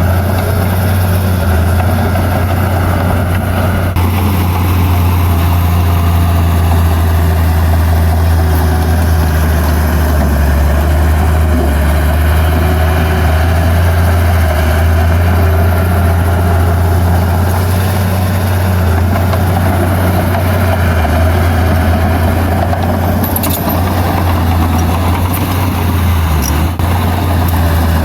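The diesel engine of heavy earthmoving equipment running steadily at an even pitch, with a low, constant hum. A couple of faint clicks come about three-quarters of the way through.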